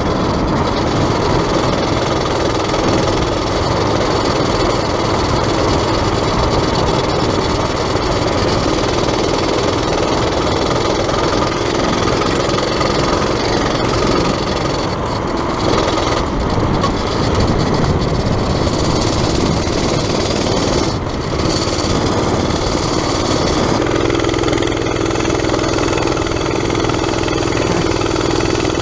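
Predator small engine in an XR80R dirt bike frame running as the bike is ridden along the road, with a dense rushing noise over the engine. About 24 seconds in it settles into a steady, even drone.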